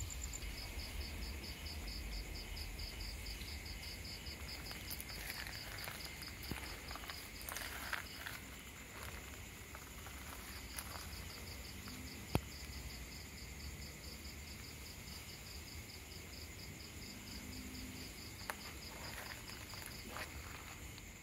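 Insects chirping in a steady, quick pulsed rhythm. The chirping stops for about two seconds near the middle, then starts again. A few faint rustles and one sharp click sound over it, with a low rumble underneath.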